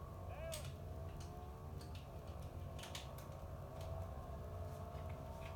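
Scattered light plastic clicks and ticks of Lego pieces being handled and snapped together, over a faint steady hum.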